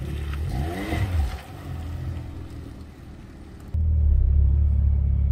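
Suzuki Swift Sport ZC33S's 1.4-litre turbo engine heard from outside the car, its note rising and falling about a second in. About three and a half seconds in, the sound switches abruptly to a steady low engine and road rumble inside the cabin.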